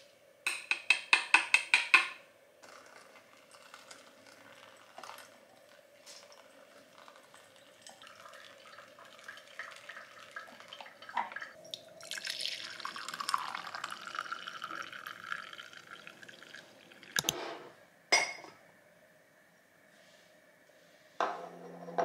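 A quick run of about eight light taps as ground coffee is knocked from a hand grinder's wooden drawer into a paper filter in a ceramic dripper, then faint trickling and dripping. Brewed coffee is then poured from a glass server into a ceramic mug in one steady pour lasting several seconds, followed by two clinks. Soft guitar music starts near the end.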